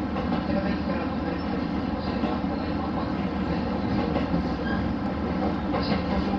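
Steady rumble of a diesel railcar running along the track.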